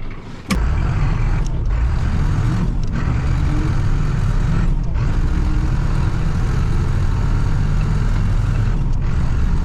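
Motor vehicle running under way: a steady low engine and road rumble that starts abruptly about half a second in.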